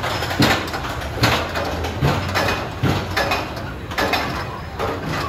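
Roller coaster train rolling along the track with repeated sharp clacks, one or two a second, over steady running noise.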